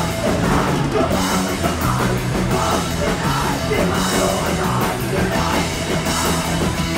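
Punk rock band playing live and loud: electric guitar, drum kit and a vocalist singing into the mic.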